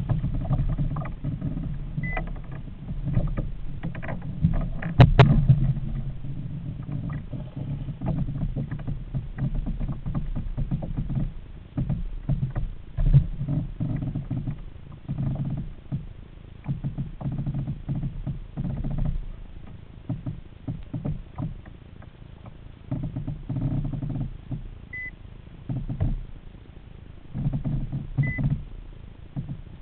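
Irregular knocks, rattles and low rumble from a Hobie kayak and its hull-mounted camera, jostled as an angler fights a fish on a bent spinning rod. One sharp knock about five seconds in, and a few short high squeaks.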